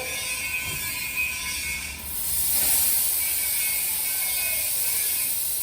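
CNC plasma cutting machine working on thin steel sheet: a steady hiss that grows louder about two seconds in, with a whine from the machine's motors sliding up and down in pitch.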